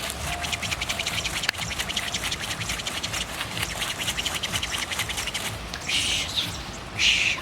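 Rapid rhythmic rustling of a bundle of healing herbs being shaken, about eight strokes a second, then two louder, longer swishes near the end.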